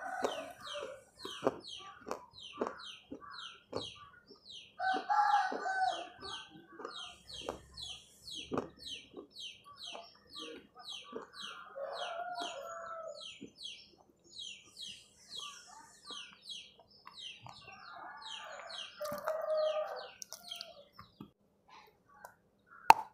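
Chickens calling: three long pitched calls about seven seconds apart, over a small bird's quick, even chirping, about three chirps a second. Scattered mouth clicks, with a sharp click near the end as food goes to the mouth.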